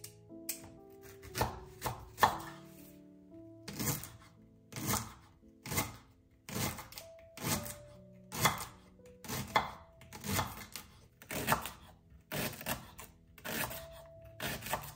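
Knife slicing a leek on a wooden cutting board, a crisp chop roughly once a second, with background music underneath.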